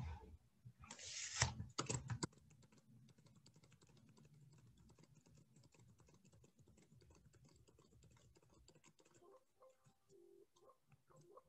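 Computer keyboard keys being typed, a fast run of faint clicks, after a short loud rush of noise about a second in.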